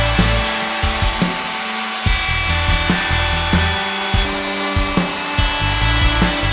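Background music with held chords over a bass line and a steady drum beat.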